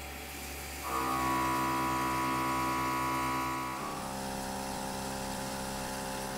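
Face mill on a SYIL X5 CNC mill cutting an aluminium soft jaw under flood coolant spray. A steady pitched whine over the hiss of the coolant sets in about a second in and drops to a slightly lower pitch about four seconds in.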